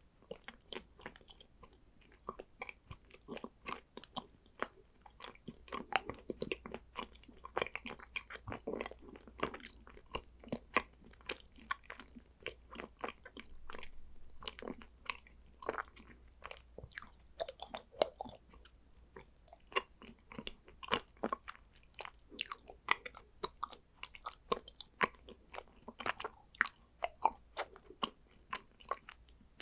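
A person chewing and biting condensed-milk chocolate, a dense, uneven run of short sharp mouth clicks and snaps.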